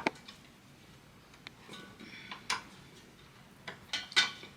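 Metal clicks and clinks of a screwdriver and screws while the blades are taken off an old ceiling fan: a few sharp clicks with brief metallic ringing, the loudest two close together near the end.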